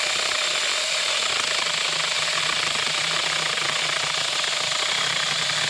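Cordless 6-inch mini chainsaw running steadily under load as its chain cuts through a soaking-wet branch.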